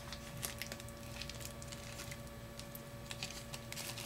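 Faint small clicks and ticks of thin steel piston rings being handled and separated by hand, over a low steady hum.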